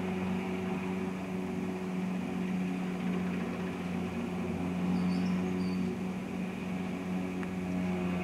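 Cargo helicopter running, a steady low drone of its engines and rotor.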